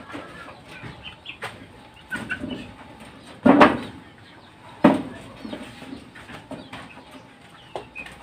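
Chickens clucking and chirping softly, with two loud sudden thumps about three and a half and five seconds in.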